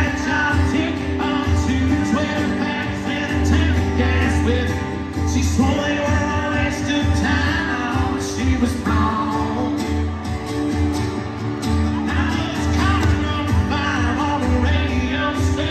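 Live country song played through an arena's PA: male vocals over acoustic guitar, heard from the stands with the hall's echo.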